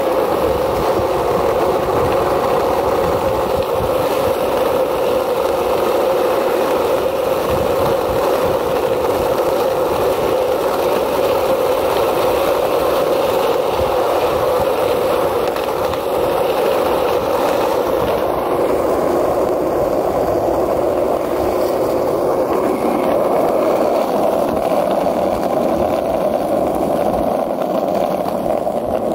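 Skateboard wheels rolling steadily on rough asphalt, a continuous even roar.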